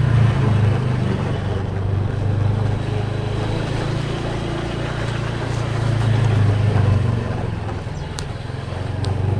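A motor vehicle's engine running steadily with road noise, its pitch shifting slightly now and then.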